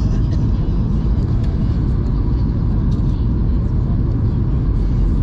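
Steady low rumble inside the cabin of a Boeing 737-800 in flight: its engines and the air rushing past the fuselage.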